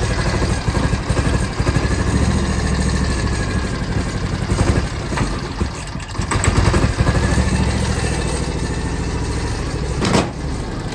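John Deere X720's fuel-injected twin-cylinder engine running with a miss on the right cylinder, a fault that swapping plugs, coil and injectors has not cured. The level dips briefly about halfway through, and there is a sharp click near the end.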